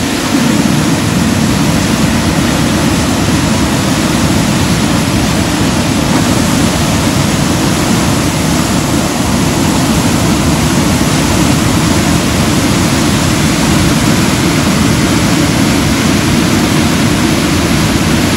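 The Bagmati River in flood: a loud, steady rush of muddy floodwater churning and tumbling over a step in the riverbed.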